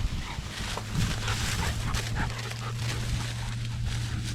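Hunting dog whining and yipping, a few short cries, over a steady low hum that starts about a second in.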